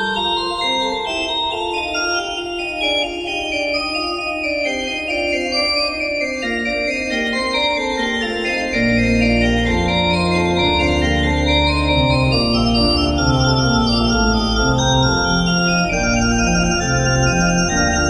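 Instrumental organ music with held notes and a moving melody; about halfway through a bass line comes in and the music gets louder.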